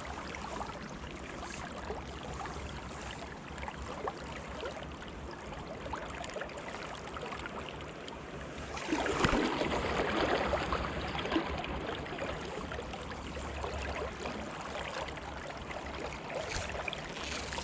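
River water rushing steadily around the angler, with a louder stretch of rushing water about halfway through that lasts a couple of seconds.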